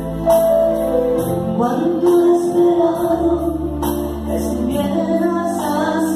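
A woman singing a slow Catholic meditation song, accompanied by an electronic keyboard playing sustained chords over a soft programmed beat.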